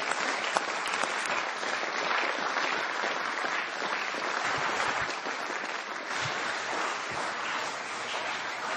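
Parliamentarians applauding steadily, a dense mass of clapping hands that eases slightly towards the end.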